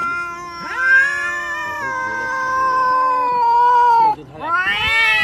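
A cat yowling in long, drawn-out calls: one held for about three seconds, then a short break and a second call that rises in pitch near the end.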